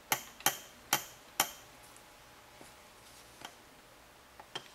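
Metal transmission parts clinking as they are handled: four sharp clicks in quick succession over the first second and a half, then a couple of faint ticks.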